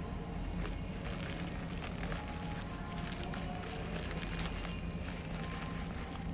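Light crackling and crinkling of packaging being handled, over a steady low hum.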